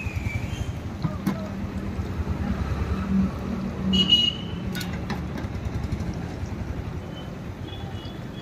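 A vehicle engine running steadily, swelling for a few seconds in the middle, with a couple of sharp clicks and a short high tone about four seconds in.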